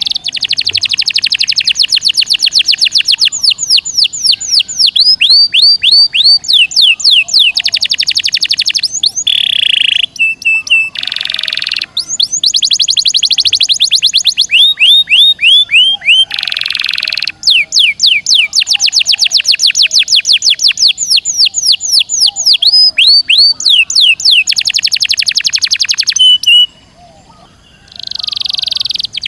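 Domestic canary singing in long, fast rolling trills of rapidly repeated high notes, some runs sliding down in pitch, broken by short pauses and a longer pause near the end.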